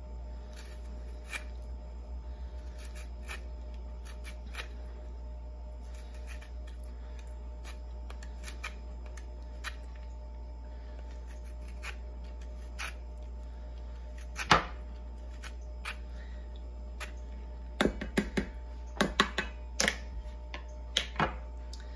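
A lime being zested on the small grating edge of a vegetable peeler over a stainless steel bowl: scattered light scraping and clicking strokes, with a sharper click about two thirds of the way through and a quick run of clicks near the end.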